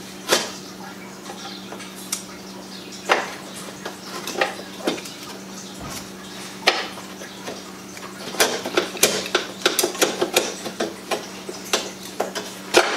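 Irregular light metallic clinks and taps of a hand tool and screws against the car's front-end metal, as headlight support screws are worked out by hand. A steady low hum runs underneath.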